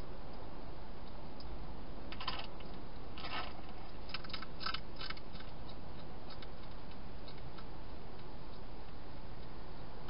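European hedgehog eating, with short runs of crisp crunching clicks between about two and five seconds in, then a few faint scattered ticks, over a steady hiss.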